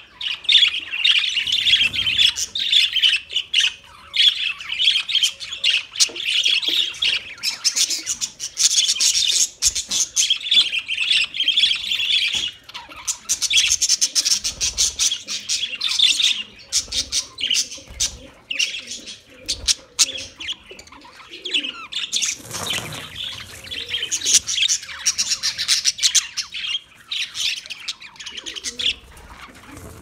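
A flock of budgerigars chattering and chirping in a dense, continuous warble of many overlapping calls. A brief rush of noise comes about three-quarters of the way through.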